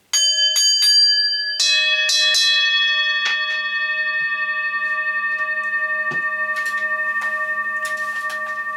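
A bell struck several times in quick succession: a few higher-pitched strikes, then a deeper-sounding strike about a second and a half in, with more light strikes after. The tones ring on, slowly fading.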